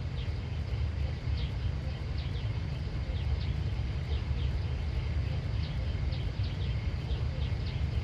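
Small birds chirping over and over in short falling chirps, several a second, over a steady low rumble.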